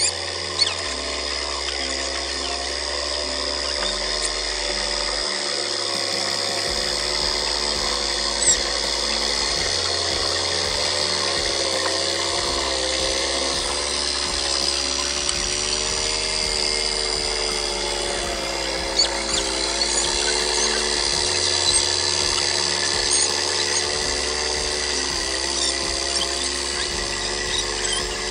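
Hand tractor (kuliglig) engine running steadily as it works a flooded rice paddy, its pitch wavering up and down with the load.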